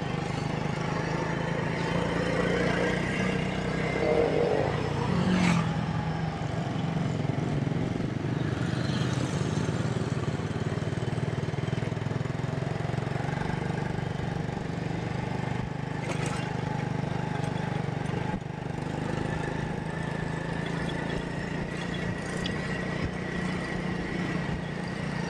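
Small motorcycle engine running steadily while riding along a road.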